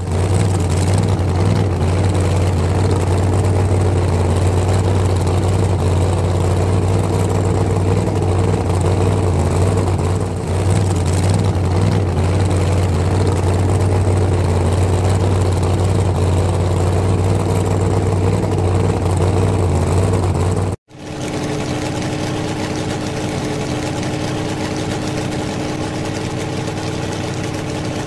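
Recorded truck engine sound effect, idling and running steadily with a deep hum. About 21 seconds in it cuts off abruptly and a second, slightly quieter engine drone with a steadier, higher hum takes over.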